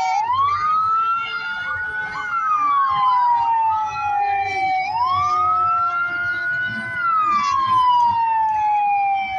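Sheriff's patrol car siren sounding a slow wail. The pitch climbs for about two seconds, then slides back down over the next two to three seconds, twice over.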